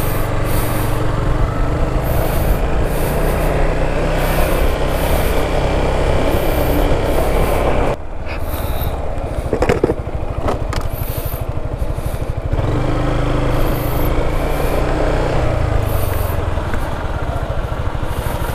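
Yamaha XMAX 300 scooter's single-cylinder engine running on its stock exhaust, a steady low rumble. It drops quieter about eight seconds in, with a couple of sharp clicks, then picks up again a few seconds later.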